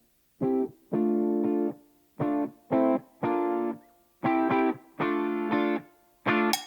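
Background music: plucked chords played in a stop-start rhythm, short stabs alternating with longer held chords, with brief gaps of silence between them.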